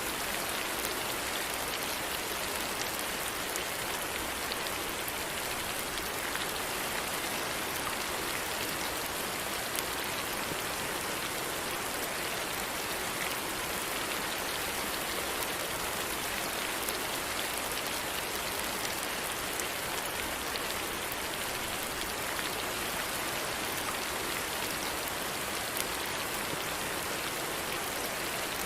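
Steady rainfall, an even hiss with faint scattered drop ticks throughout.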